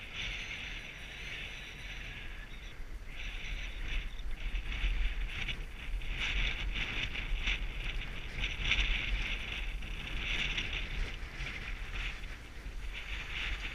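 Skis hissing and scraping over groomed snow, swelling and fading every few seconds, with low wind rumble on the microphone.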